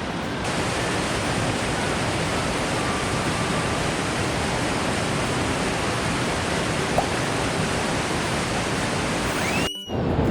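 Steady rushing of a mountain stream's flowing water, with a brief dropout near the end.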